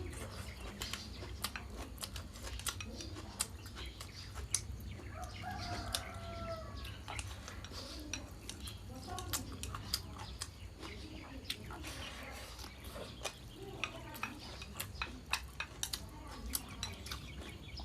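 Close eating sounds: chewing with many small clicks of chopsticks against a bowl. A chicken clucks a few times in the background about five seconds in.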